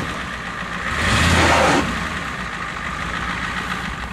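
Ford pickup truck's engine revving hard under load as the truck drives over junked cars, surging about a second in and then running steadily.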